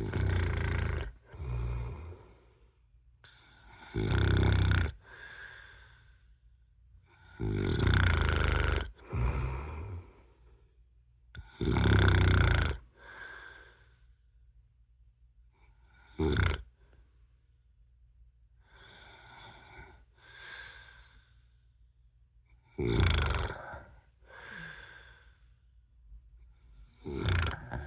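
A man snoring in his sleep: a loud snore roughly every four seconds, each followed by a shorter, softer one.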